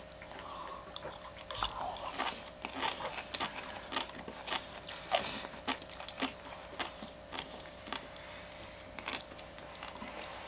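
A person chewing food close to the microphone, with irregular small crunches and clicks.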